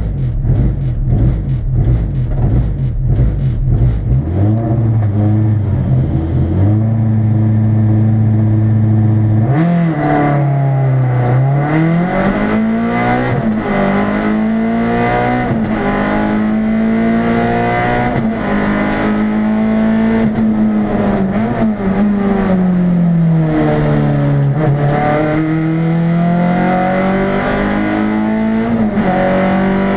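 Race car engine heard from inside the cabin: blipped and held at high revs at the start line, then launching about ten seconds in and accelerating hard up the course, the pitch climbing and dropping with each gear change.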